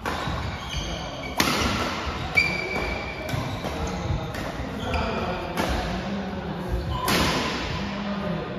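Badminton doubles rally: a string of sharp racket-on-shuttlecock hits every second or so, echoing in the hall, with short squeaks of court shoes and footsteps between them.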